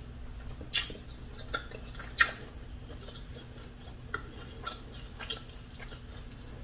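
A person chewing food close to the microphone: scattered wet mouth clicks and smacks, the two loudest about three quarters of a second and two seconds in.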